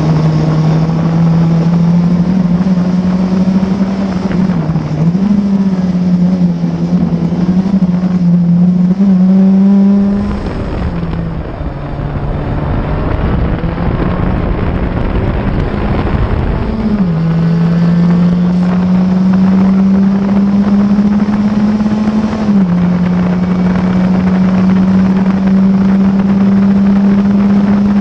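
Onboard sound of a classic Formula Ford's 1600 cc Ford Kent four-cylinder engine at high revs, the note climbing steadily through the gears with wind noise. About ten seconds in the engine note falls away under a rumbling noise for several seconds as the car lifts through a corner, then it pulls hard again, with a quick drop in pitch at an upshift later on.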